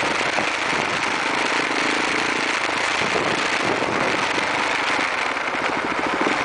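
A motorcycle riding in city traffic, heard from an on-board camera: a steady rush of wind and road noise over the running engine.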